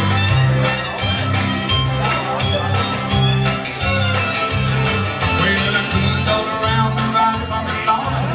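Live acoustic country-bluegrass band playing an upbeat tune: acoustic guitars strummed over a steady bass that alternates between two notes.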